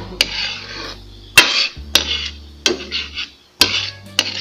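Metal spoon stirring coconut milk in a pan, knocking against the pan about six times with a short scrape after each knock.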